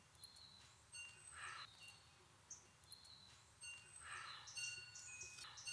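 Faint garden ambience with small birds chirping in short, high notes, and a couple of soft rustles.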